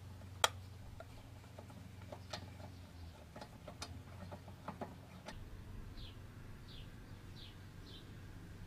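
Scattered light metallic clicks of a socket and wheel bolts as the bolts are threaded by hand into an alloy wheel. The loudest click comes about half a second in. Later a small bird chirps four short falling notes, about one every two-thirds of a second.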